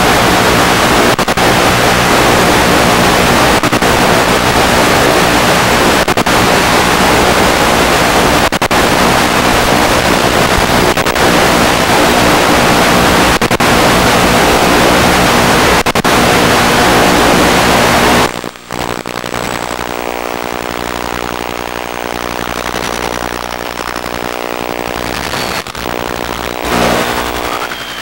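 Loud hiss of radio static from an analog FPV video receiver as the link breaks up, with brief dips about every two and a half seconds. About two-thirds of the way through, the static cuts off and a steady buzzing hum takes over as the signal comes back.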